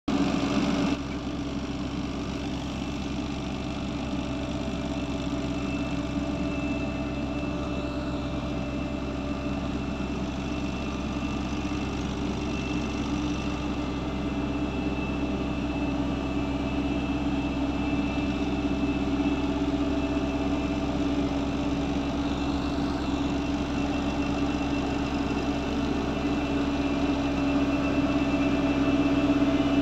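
Vibratory soil compactor running steadily as it compacts the ground: its diesel engine and vibrating drum make a continuous even hum and drone, growing slightly louder toward the end.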